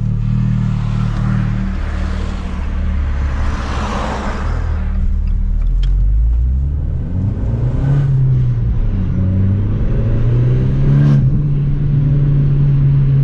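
Abarth 695 70° Anniversario's turbocharged 1.4-litre four-cylinder engine and exhaust, heard from inside the cabin while the car accelerates through the gears. The engine note climbs and drops back at each gear change. Wind noise rushes across the microphone.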